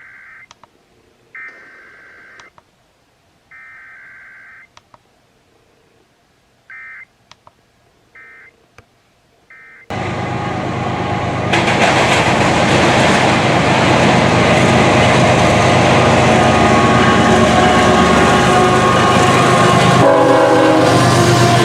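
Emergency Alert System digital header tones: three harsh warbling data bursts of about a second each, a second apart, then a few shorter bursts. About ten seconds in, loud radio audio with music cuts in.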